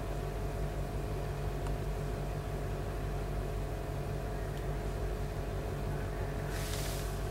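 Steady low appliance hum, a drone with a few fixed tones that stays level throughout. A short soft hiss comes near the end.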